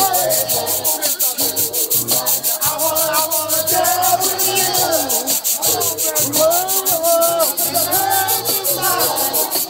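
Music playing: a gliding melody over a stepping bass line, with a fast, even, hissy beat of about four strokes a second.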